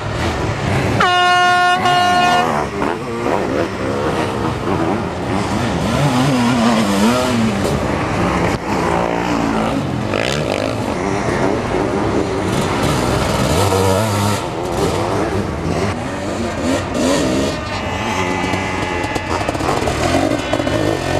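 Sidecar motocross outfits' engines revving up and down as they race over the dirt track. A horn sounds one steady blast for about a second and a half shortly after the start.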